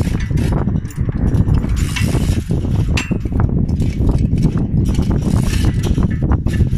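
Manual chain hoist being worked by hand: the steel chain clinks and the mechanism clicks irregularly, over a loud steady low rumble.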